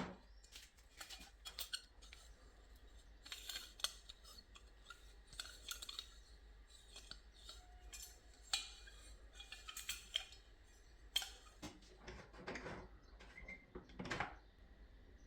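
Irregular metallic clicks, clinks and short scrapes of small metal door hardware being handled and worked.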